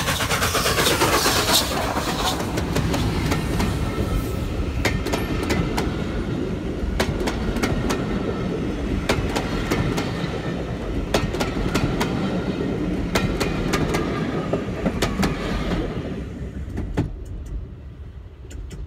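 Streamlined LNER A4 Pacific steam locomotive passing close at speed with rapid exhaust beats, followed by its coaches rumbling past with wheels clicking over the rail joints. The sound dies away over the last few seconds as the train moves off.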